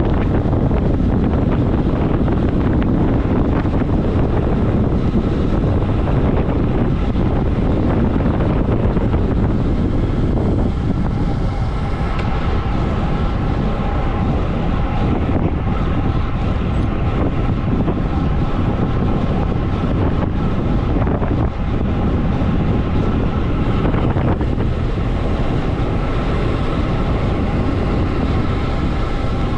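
Loud, steady rush of wind buffeting the microphone of a road cyclist's point-of-view camera on a fast downhill, with the road bike's tyres running on asphalt underneath. A faint thin whine joins the noise about twelve seconds in.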